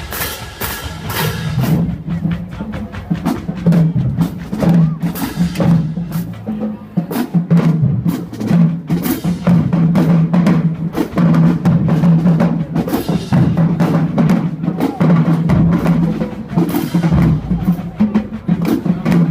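Marching band drumline playing a cadence: quick, sharp snare and stick hits over a steady low pulse.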